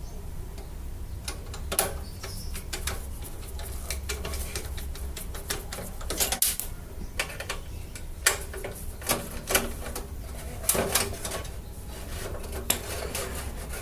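Scattered metallic clicks and knocks as the last screws are taken out and a computer power supply is handled and pulled from a steel PC case, with a low steady hum underneath.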